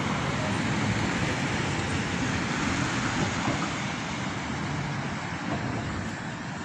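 City road traffic: cars passing on a multi-lane avenue, a steady rush of tyres and engines that eases a little toward the end.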